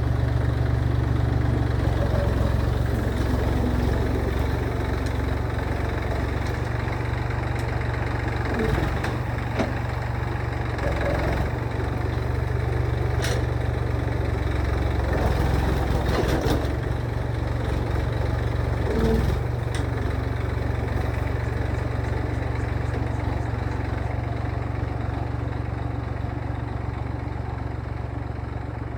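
Massey Ferguson tractor's diesel engine running steadily, with a few short clanks in the middle, easing off slightly near the end.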